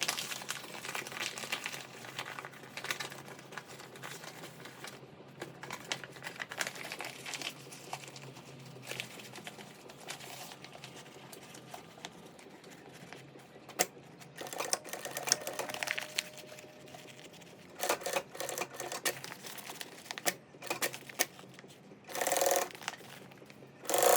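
Stiff laminated bag fabric being handled and turned inside out, with rustling and scattered clicks. Later a sewing machine stitches in short runs, the loudest just before the end.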